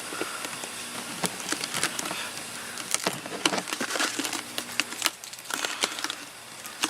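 Plastic coffee-can lid being pressed and worked onto the can by hand: a run of irregular small clicks and crackles, with a faint steady hum underneath.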